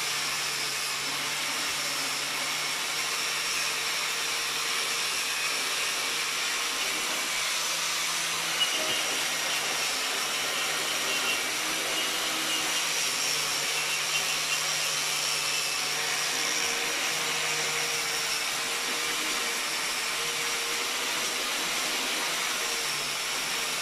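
Electric angle grinder with a wire cup brush running steadily, scouring hardened, brittle old gasket material off the steel cover flange of a rear differential housing.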